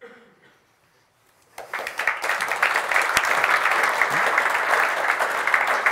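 Audience applauding, a dense clapping that starts about a second and a half in.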